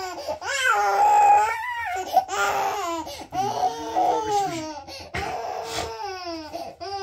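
Infant vocalizing: a run of high-pitched, drawn-out calls and squeals with wavering pitch, somewhere between laughing and fussing cries, with a short break midway.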